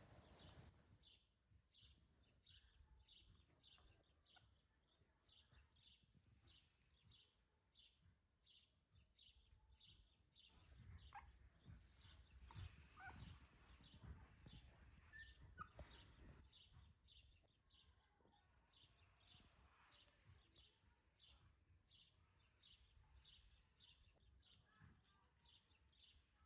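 Near silence, with faint high chirps or ticks repeating about twice a second and a few brief higher chirps midway.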